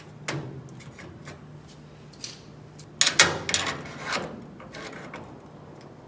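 Workshop handling noise as a sheet-metal part is worked and test-fitted: scattered knocks, clicks and scrapes, with a burst of louder clatter about three seconds in, over a steady low hum.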